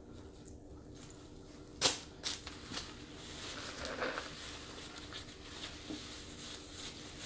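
Paper napkin and food-wrapper paper rustling and crumpling while hands are wiped. A sharp click or tap about two seconds in is the loudest sound, followed by two smaller ones.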